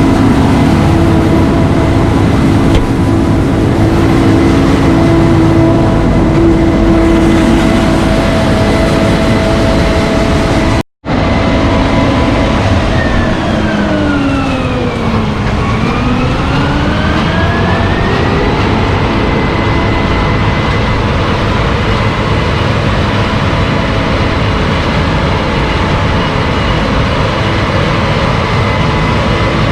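Loud, steady running of heavy farm machinery engines, with a steady hum of engine tones. It cuts out for a split second about eleven seconds in, and a few seconds later the engine pitch sweeps down and back up.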